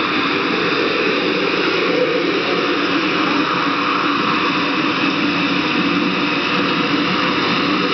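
Loud, steady rush of a man-made flood torrent pouring down artificial rock slopes and throwing up spray.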